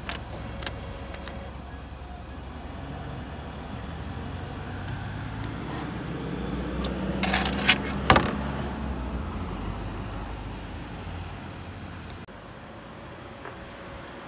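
Coins clinking in the metal change tray of a parking pay machine as change is taken out by hand, a cluster of sharp clinks about seven to eight seconds in, over a steady low hum.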